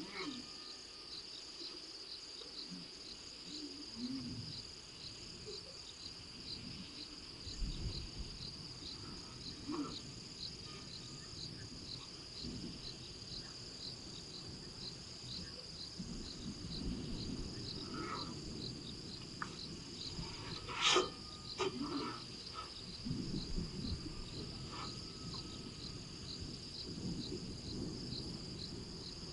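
Crickets chirping steadily in a rhythmic trill throughout. Over it, an elephant's trunk rubbing and bumping against the camera gives low rumbling scrapes and a few sharp knocks, the loudest about 21 seconds in.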